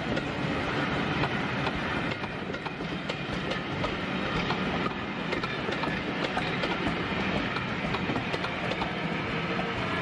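A train of passenger coaches rolling past, its wheels clattering over the rail joints in a continuous run of clicks.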